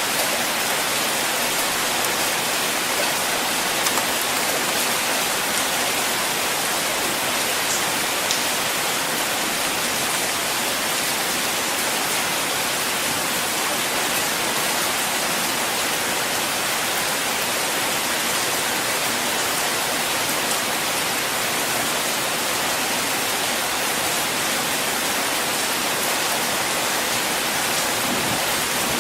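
Rain falling steadily on a car: an even, unbroken hiss.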